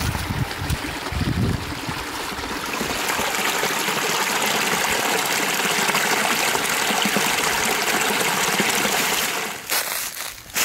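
Small mountain stream splashing down between rocks in a little cascade, a steady rushing. There is low wind rumble on the microphone in the first second or so, and the water sound breaks off near the end.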